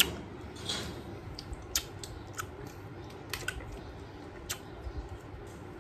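Crunchy chewing of crisp food close to the microphone: a string of short, sharp crackly crunches at irregular intervals, the loudest right at the start.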